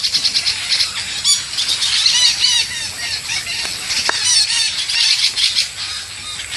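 Long-tailed parakeets screeching: a dense run of shrill, repeated squawks, several calls overlapping.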